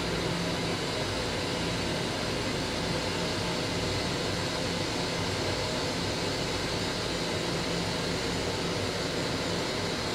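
Steady hum and rumble of a Long Island Rail Road M7 electric railcar, heard from inside its small restroom, with a few steady low tones from the car's equipment.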